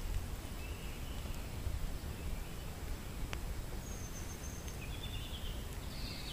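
Woodland ambience: a few short, high bird calls over a steady low rumble, with one sharp click about three seconds in.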